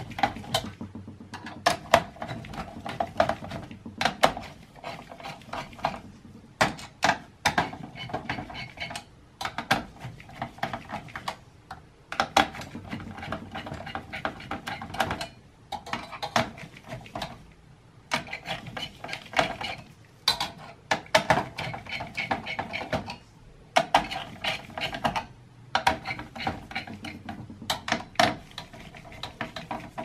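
Screwdriver tightening the screws of a CPU heatsink in a Dell Precision T3500 workstation: irregular clicking, with a few short pauses.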